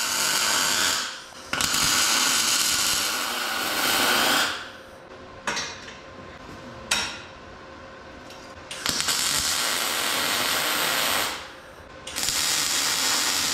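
MIG welder running in bursts of a few seconds. There are four runs, with a longer pause in the middle broken by two sharp clicks.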